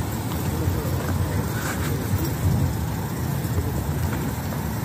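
Steady low rumble of vehicle noise, with no clear events standing out.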